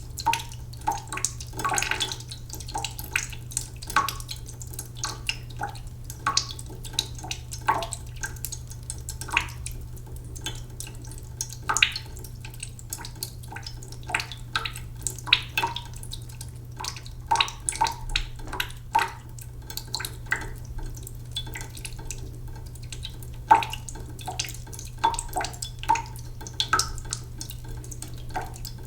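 Cooking pot filling slowly under a sink tap: a slow, uneven run of drops plinking and plopping into the water in the pot, sometimes several in quick succession, over a steady low hum.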